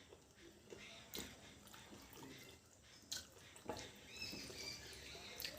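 Faint eating sounds of mutton curry and rice: scattered mouth clicks, smacks and chewing, with a few short high squeaks about four seconds in.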